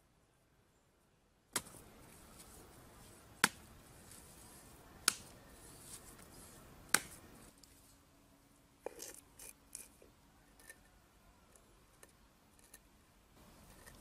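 Hard clicks and knocks of flat stone pieces being handled and set into a small mud-brick hearth frame: four sharp clicks about two seconds apart, then a short flurry of lighter knocks and scrapes, and a few soft ticks near the end.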